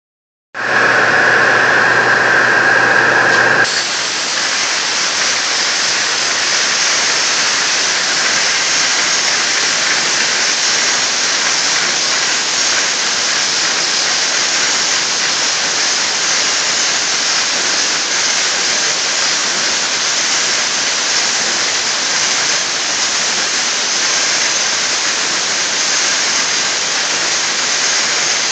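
Flow waterjet cutter engraving stone in low relief: the high-pressure water jet hisses steadily as it sprays over the slab in the water tank. For the first few seconds a loud pitched drone sounds along with the hiss and stops suddenly about three and a half seconds in.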